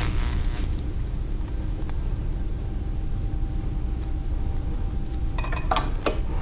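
Steady low background rumble, with a few light metal clicks and clinks near the end as a steel square is set against the grinder's chuck and bearing edge.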